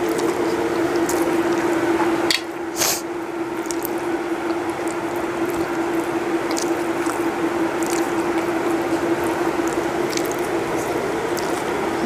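Close-mic eating sounds: chewing, and fingers mixing rice and curry on a steel plate, heard as scattered small wet clicks and squishes over a steady hum.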